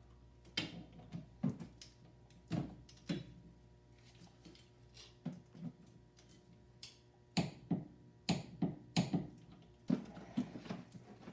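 Scattered clicks and metallic clinks of a wrench working on the bolts of a car's rear wheel hub, irregularly spaced, with a quicker run of them in the second half.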